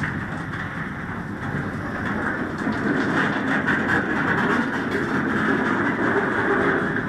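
Open-top hopper railcars rolling slowly past close by: a steady rumble and grinding of steel wheels on the rails, growing a little louder about two and a half seconds in.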